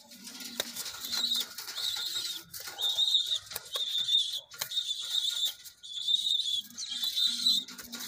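Pigeons calling: a run of short high-pitched squeaks about once a second, with low cooing near the start and again near the end, and scattered scratchy clicks.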